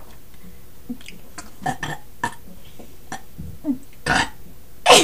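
A person burping in short bursts, the loudest about four seconds in and again at the very end.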